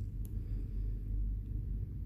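Steady low background rumble, with one faint click about a quarter second in.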